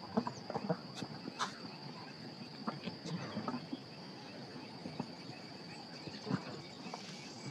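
A steady high insect chirring runs under scattered short knocks and scuffs from elephants sparring on dry, dusty ground.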